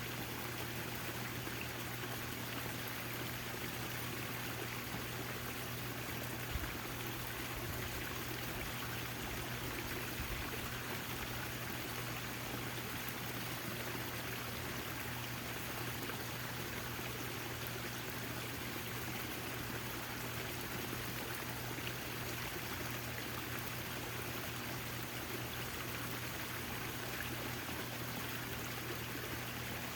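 Backyard fountain with water steadily pouring and splashing into its basin, an even, unbroken rush, with a steady low hum underneath.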